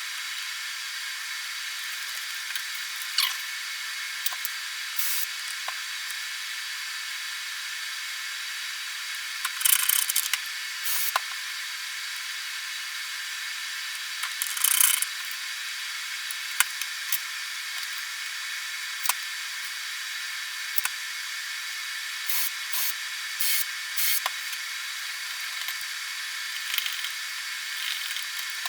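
Hand-tool work on a wooden board: scattered small clicks, taps and short scrapes as metal door-knob backplates are fitted and screwed on, over a steady hiss.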